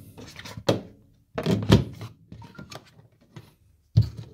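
A plastic cover on a tumble dryer's lint-filter housing being closed and handled: a run of sharp knocks about two-thirds of a second, one and a half and four seconds in, the loudest just before the two-second mark.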